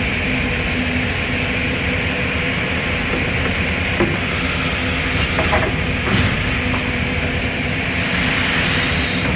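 Morbidelli CNC router running with a steady hum. Short compressed-air hisses come in several times, with a few sharp metallic clicks, as the automatic tool changer works.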